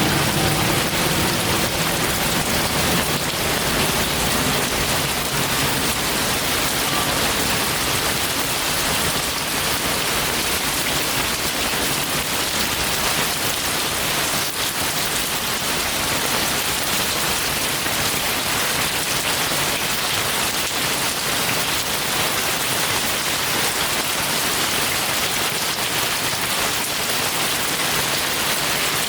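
Heavy, steady rainfall: an even hiss of rain falling on surfaces. A faint low hum fades out in the first few seconds.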